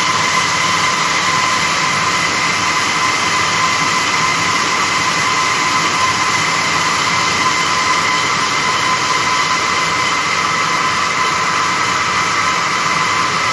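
Several circular looms weaving woven polypropylene sack fabric, running with a loud, steady mechanical din and a constant high whine.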